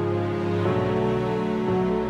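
Instrumental music of a song's slow introduction: sustained chords that change about once a second, with no singing yet.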